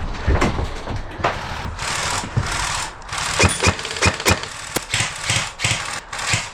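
Airsoft electric guns firing in short full-auto bursts, with many sharp clicks and knocks between them.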